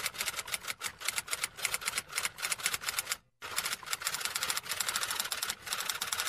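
Rapid, irregular clicking, like keys striking, several strokes a second. It cuts off suddenly about three seconds in and starts again a moment later.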